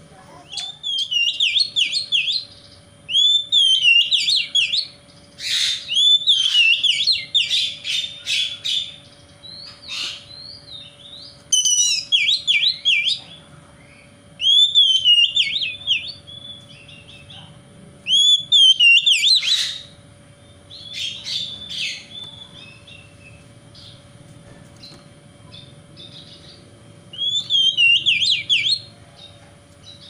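Oriental magpie-robin (kacer) singing: bursts of loud, rapidly rising and falling whistled phrases, each a second or two long, with short pauses between them. A longer lull comes past the middle before a last phrase near the end, over a faint steady hum.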